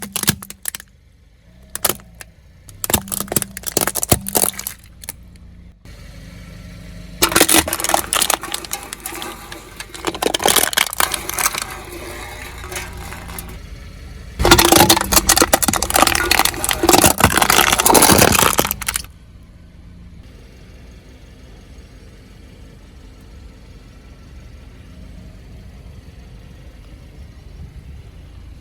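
A car's tyres rolling over and crushing brittle objects, with crackling and snapping in three bursts: a broken one in the first few seconds, a longer one from about seven seconds in, and the loudest from about halfway. After that only the car's low, steady running is heard.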